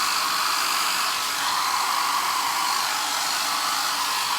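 Mini hair dryer running steadily, an even rush of air with a steady motor whine, blowing wet acrylic paint across a canvas.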